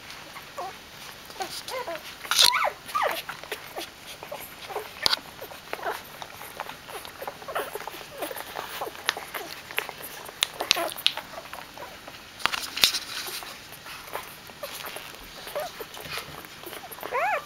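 Young Doberman puppies squeaking and whimpering in short bursts, mixed with rustling and small clicks as they jostle close to the microphone; the loudest squeaks come about two and a half seconds in and again around thirteen seconds.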